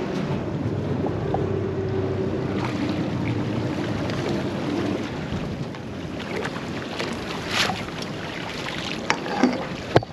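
Boat engine running with a steady hum while the boat moves slowly through the water, with wind on the microphone; the hum fades after about five seconds, leaving water wash, and a few sharp knocks and splashes come near the end.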